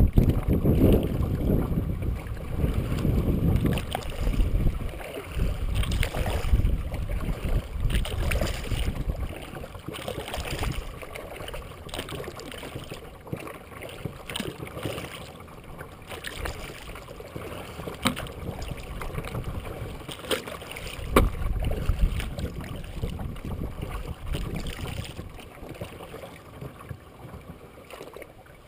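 Kayak paddling: paddle strokes dip and splash about every two seconds, water swishes along the hull, and now and then a gust of wind rumbles on the microphone.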